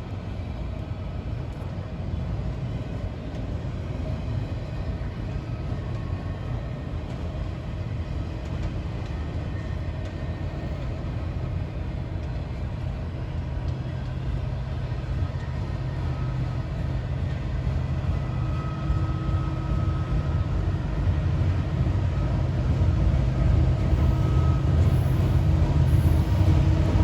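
A train approaching: a low rumble with steady engine tones, growing steadily louder.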